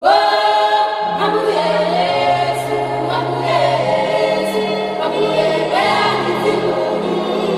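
Background music: a choir singing slow, held chords that change every second or two.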